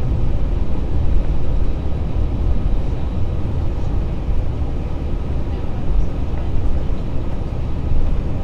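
Steady low rumble inside the cabin of an Airbus A320 jet airliner as it taxis, with its engines running at low power and no spool-up.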